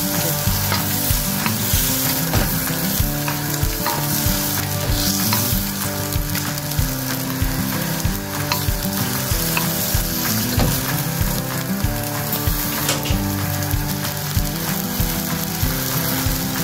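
Sweet lemon sauce sizzling and bubbling in a hot pan as battered fried chicken pieces are tossed through it with wooden spatulas, a steady hiss with small scraping and clicking sounds of the stirring.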